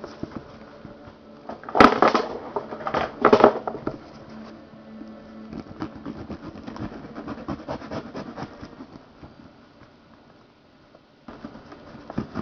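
Cardboard toy box and plastic packaging being handled and opened, scraping and rustling, with two loud sharp scrapes early on and a brief lull near the end.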